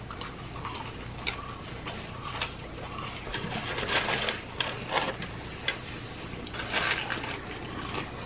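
Close-miked chewing of McDonald's French fries by two people: irregular short mouth clicks and smacks over a low steady hum.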